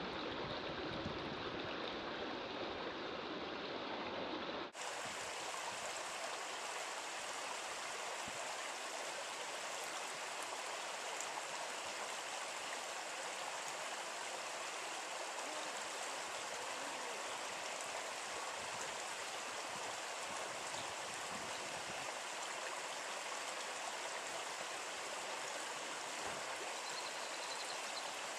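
Wind rumbling on the microphone, then after an abrupt cut about five seconds in, a steady, even rush of running water like a stream or small cascade.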